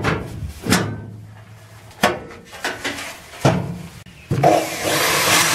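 Loose sheet-steel floor pan clanking with a few sharp knocks as it is handled and set down. About four seconds in, a corded electric drill starts and runs steadily, boring small 6 mm holes into the car's steel floor at the spot welds.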